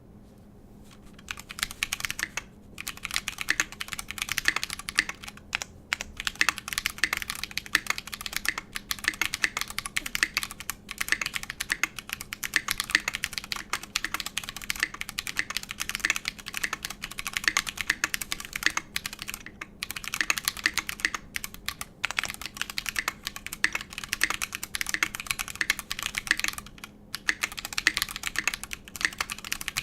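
Fast continuous typing on an ALF DC60 custom mechanical keyboard with Holy Chickies tactile switches (MX Blue housings with Halo True stems) on a brass plate, with JTK keycaps. The spacebar uses a Holy Panda switch on clipped, lubed stabilizers. Rapid overlapping keystroke clacks start about a second in, with a few brief pauses.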